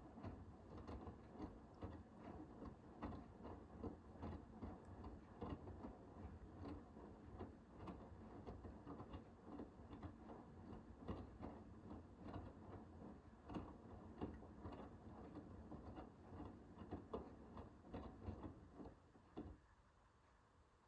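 Hoover H-WASH 500 washing machine's drum turning with the load during a Cotton 60 cycle, giving a run of soft, irregular clicks and knocks. It stops suddenly about a second before the end as the drum pauses.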